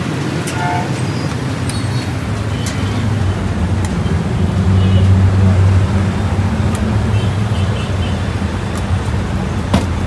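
Low, steady rumble of road traffic that swells as a vehicle passes about halfway through, with scattered light clicks.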